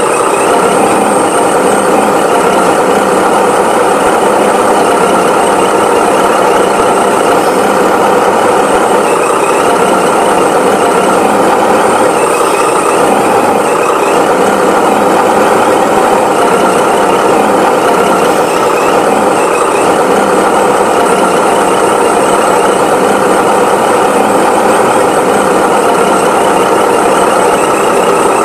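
Tractor engine sound running steadily and evenly, with no revving or change in pitch.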